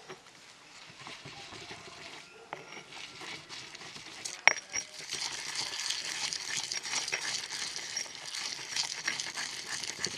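Stone pestle grinding wet spice paste in a stone mortar. Light scrapes and taps at first, then a single sharp knock of stone on stone about halfway through. After that comes a steady gritty scraping as the pestle is worked round against the bowl.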